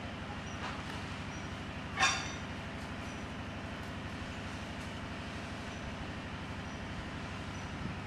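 A steady low mechanical drone, like an engine running. About two seconds in, one short high-pitched squeak or chirp.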